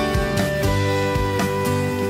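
Background music: an instrumental track with guitar.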